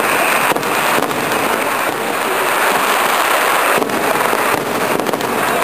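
Fireworks display: a dense, continuous crackle of many overlapping bursts, with a few sharper bangs standing out, about half a second in and again near the end.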